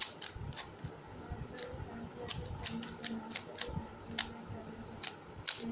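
Plastic 3x3 speed cube being turned by hand: quick, irregular clicks of its layers snapping round, several a second.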